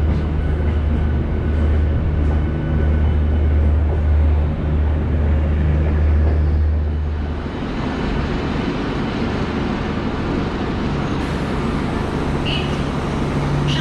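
MEDHA-rake electric multiple-unit local train rolling along the platform as it slows into its terminal station, with a strong low motor hum that drops away about halfway through, leaving the steady rumble of the coaches.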